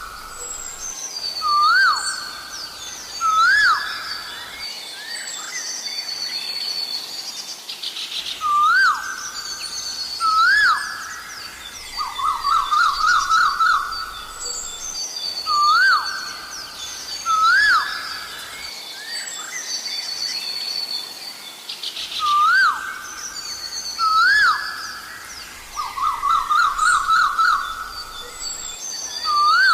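Asian koel calling over and over: single rising whistled notes, often in pairs, broken twice by a fast run of repeated notes. Other small birds chirp and twitter higher up the whole time.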